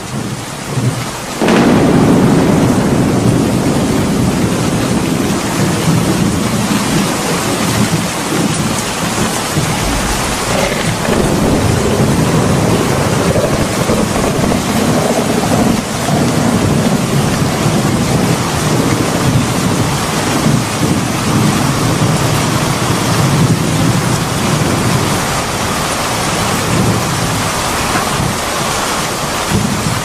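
Heavy rain pouring steadily in a thunderstorm, with a deep rumble of thunder underneath. It gets noticeably louder about a second and a half in.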